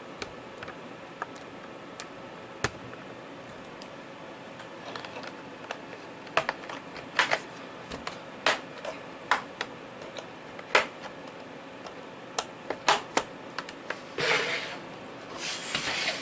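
Plastic snap clips of a Lenovo 80XV laptop's case clicking as a flat screwdriver pries along the seam, a scattering of sharp irregular clicks. Near the end comes a longer rustling scrape as the case is handled.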